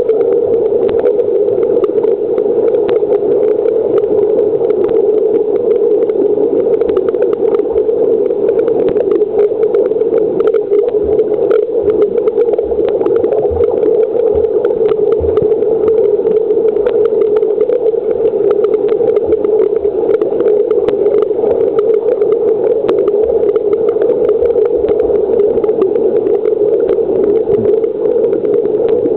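Steady underwater hum of a swimming pool heard from below the surface, one even mid-pitched drone with scattered faint clicks and ticks.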